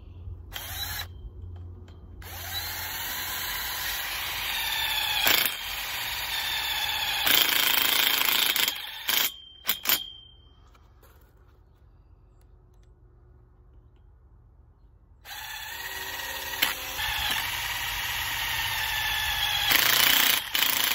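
Cordless drill driving self-tapping screws into galvanized steel hoop tubing, the motor whine rising in pitch as each screw cuts its way in. There are two long runs of several seconds each, with a few short bursts and a quieter pause between them.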